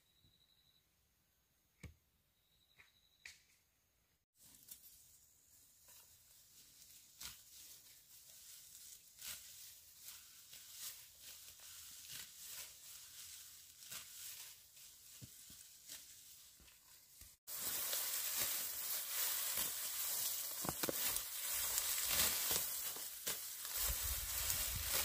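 Long grass being cut by hand and gathered into bundles: a rustling and tearing of stems with many short sharp strokes. It gets much louder and closer in the last part.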